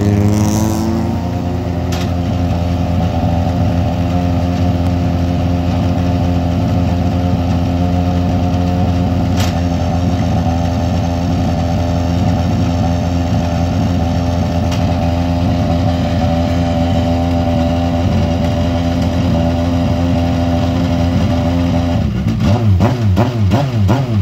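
Dallara F302 Formula 3 car's four-cylinder racing engine just after starting: the revs drop in the first second and settle into a steady, loud idle. About 22 seconds in it is revved in a quick series of throttle blips, the pitch rising and falling several times a second.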